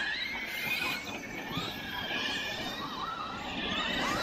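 Electric radio-controlled cars' motors whining on a dirt track, the whine gliding up and down in pitch as they throttle on and off, over a rough rushing noise.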